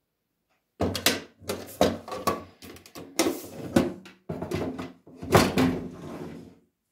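A run of knocks and clunks, about eight over some six seconds, some ringing briefly, as a metal tin and a ceramic mug are handled and set down on a wooden counter.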